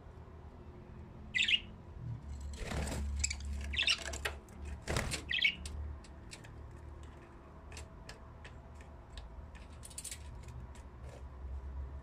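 A flock of budgerigars in an aviary chirping and squawking in short, high calls, busiest from about two to six seconds in, then only scattered brief chirps. A low steady hum runs underneath.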